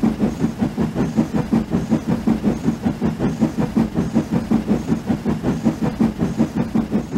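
Steam locomotive chuffing at a quick, steady beat, several puffs a second.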